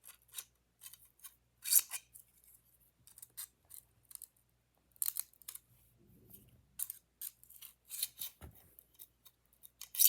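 A string of short, sharp clicks and snips at irregular intervals, made by small hard objects being handled.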